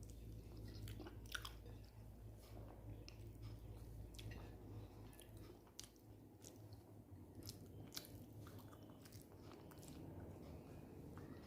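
Faint, close-miked chewing of a mouthful of food, with scattered soft mouth clicks.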